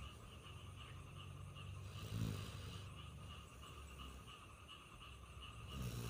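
A sleeping pet snoring, with one snore about two seconds in and the next starting near the end.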